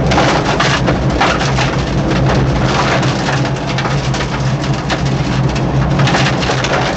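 Peugeot 205 1.9 rally car heard from inside the cabin: the engine runs at a steady note under a dense, irregular patter against the bodywork.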